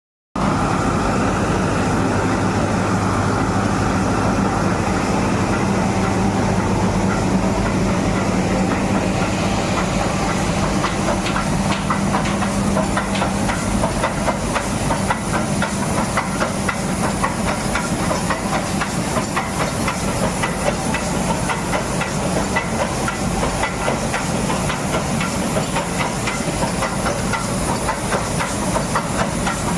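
Nilgiri Mountain Railway steam locomotive letting off a steady, loud hiss of steam. A low hum sits under it for the first third. Rapid fine clicking and rattling runs through the rest.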